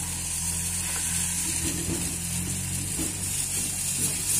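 Lentil bara patties sizzling as they fry in a small pan of hot oil, with a metal spoon scraping and turning them now and then. A steady low hum runs underneath.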